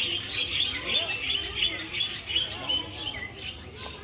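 Small birds chirping: a dense run of short, high, rapidly repeated chirps that thins out after about two and a half seconds.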